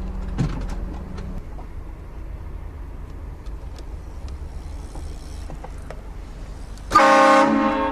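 Vehicle-mounted train horn blasting a loud multi-tone chord that starts suddenly about seven seconds in, over the steady low rumble of the vehicle driving.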